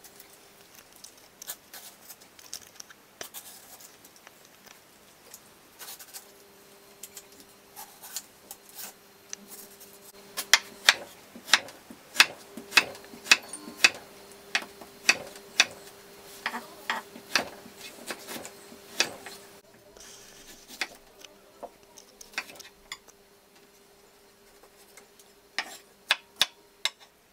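Chef's knife cutting mango on a wooden chopping board: a run of sharp knocks as the blade meets the board, coming about once or twice a second through the middle and briefly again near the end. A faint steady hum runs underneath.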